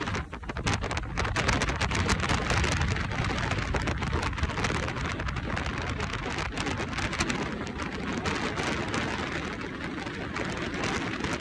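Wind and rushing water aboard a small motorboat underway, with a steady low rumble and dense crackling from wind gusting on the microphone.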